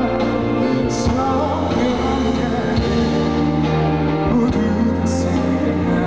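Live ballad performance: a male singer's voice with full band accompaniment, heard from the audience in a concert hall.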